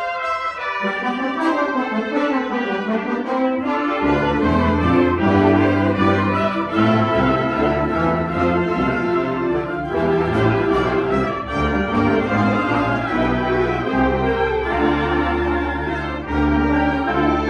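Wind ensemble playing a concert piece, with the brass section to the fore. The low brass and bass come in about four seconds in beneath sustained chords.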